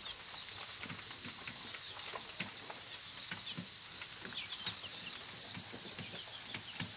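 Dense chorus of farmed field crickets chirping, a steady high-pitched trill, with scattered faint clicks underneath.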